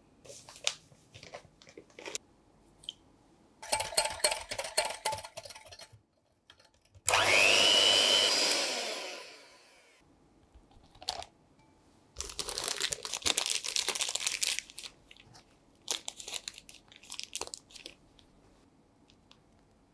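Clear plastic piping bag crinkling and rustling in several bouts as it is set in a glass and filled with meringue. The loudest sound is a rushing noise with a rising whistle that starts suddenly about seven seconds in and fades away over some three seconds.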